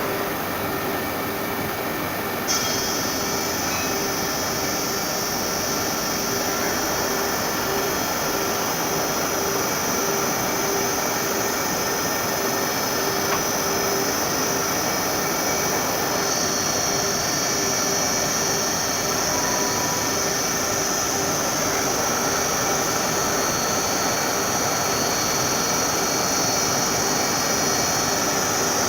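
Rubber roller grooving and grinding machine running: a steady mechanical noise with a constant hum, joined about two and a half seconds in by a high-pitched whine that holds steady.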